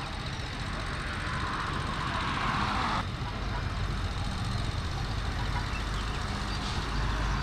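Road traffic: cars driving past on the road, a steady rumble of engines and tyres. A hiss builds and stops abruptly about three seconds in, and the rumble grows stronger near the end as a car passes close by.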